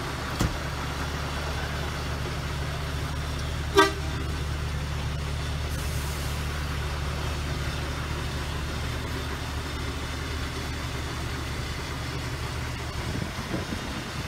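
A vehicle engine idling with a steady low drone, and a single short horn toot about four seconds in.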